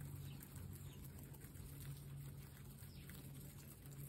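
Guinea pigs chewing fresh grass, a faint, rapid crunching and ticking over a steady low hum, with a few faint bird chirps.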